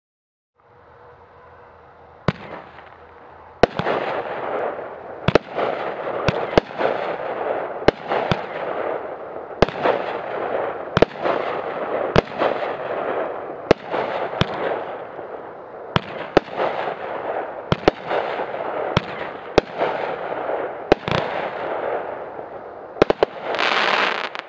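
A 16-shot consumer firework cake (a 200-gram repeater) firing. A steady hiss starts it, then sharp bangs come about once a second, often in close pairs, over continuous hissing and crackling from the brocade and crackling stars. A dense burst of crackling comes near the end.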